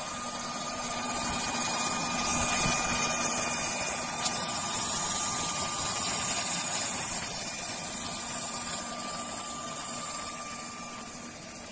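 A small electric motor running steadily: an even hum and hiss with a thin constant whine, swelling slightly and then easing off.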